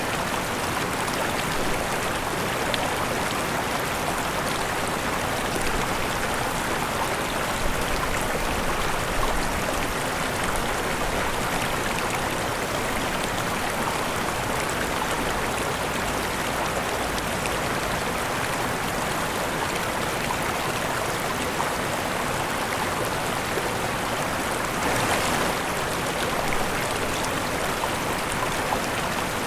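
Waterfall: water falling and splashing in a steady, even rush. It swells slightly about 25 seconds in.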